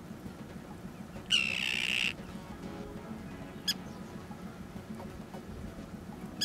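Common tern giving one loud, drawn-out call about a second in, followed by a short sharp note near the middle and another at the end.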